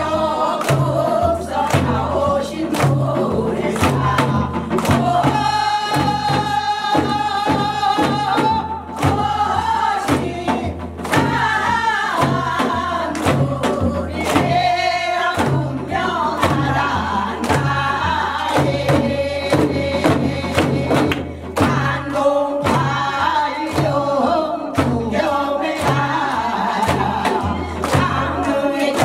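Group of women singing a Korean folk song together, accompanied by a steady bass beat and frequent sharp strikes on traditional Korean drums.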